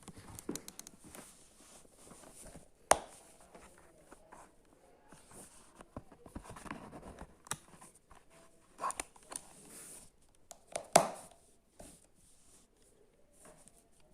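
Packaging being handled and opened by hand: irregular rustling, crinkling and tearing with small clicks, and two sharp knocks, about three seconds in and near the end.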